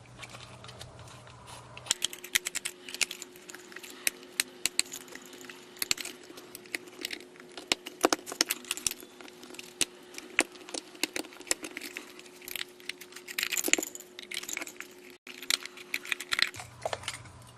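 Screwdriver and hard plastic parts of a small battery body massager clicking and clattering in a run of sharp, irregular taps as its last screws are removed and the casing is opened.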